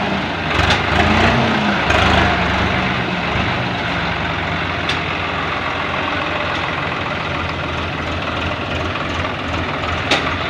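Swaraj 744 XT tractor's three-cylinder diesel engine running under load while hauling a heavily loaded trolley at walking pace. Its pitch rises and falls a few times in the first couple of seconds, then runs steady.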